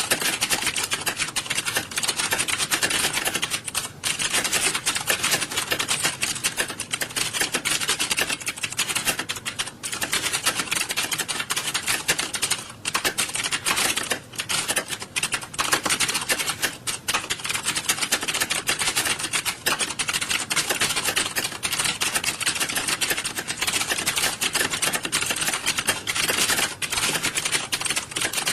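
Many computer keyboards typed on at once, a dense, unbroken clatter of overlapping keystrokes from a roomful of typists taking a typing test.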